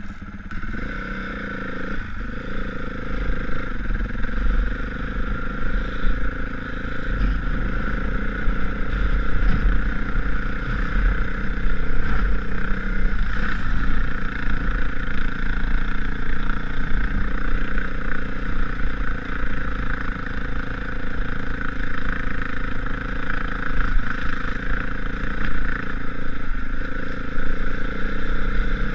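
Honda CRF450 motocross bike's four-stroke single-cylinder engine running and being ridden around a dirt track, heard from a helmet-mounted camera. It gets louder over the first ten seconds or so as the bike pulls away and picks up speed, then runs on at a steady level with the throttle rising and falling.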